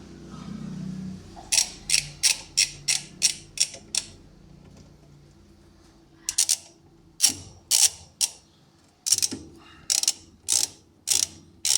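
Ratchet wrench with a 7/16-inch socket clicking as it turns down the bolt that holds a washing machine's agitator. A quick run of about eight clicks comes at roughly three a second, then after a pause more clicks follow at a slower, uneven pace.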